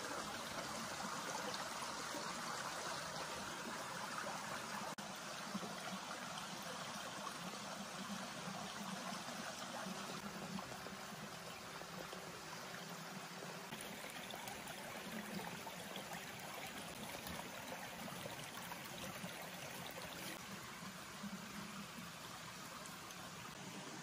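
Small forest stream trickling and flowing steadily.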